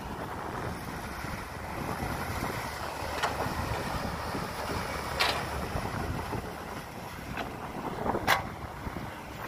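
Cat 312B excavator running steadily under load as it digs and loads soil into a dump truck, with four sharp knocks from the working machine, the loudest near the end. Wind buffets the microphone.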